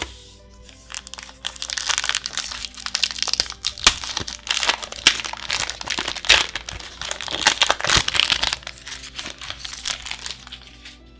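Foil booster pack wrapper crinkling and crumpling in the hands: a dense run of crackles that starts about a second and a half in and dies away near the end.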